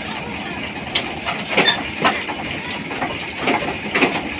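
Tractor engine running steadily, with about half a dozen irregular knocks and clanks from parts at the tractor's front hitch being handled.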